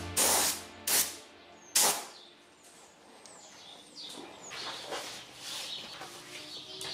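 Gravity-feed paint spray gun firing three short hissing bursts in the first two seconds. After that come a few faint, high bird chirps.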